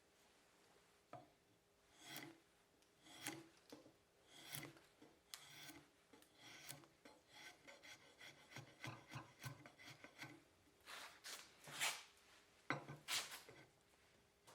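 Faint wood rasp strokes on a hickory hammer handle, shaping the shaft to fit the hammer head. The strokes come one after another in an uneven rhythm, quicker through the middle.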